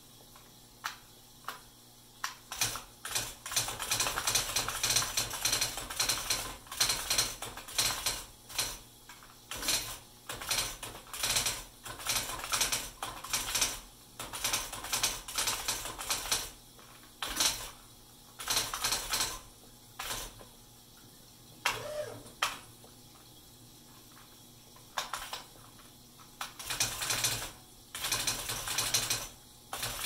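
IBM Wheelwriter 5 electronic daisywheel typewriter printing a line of text, its print mechanism clattering in rapid runs of strikes, word by word, with short pauses between. Near the end the carrier runs back to the left margin.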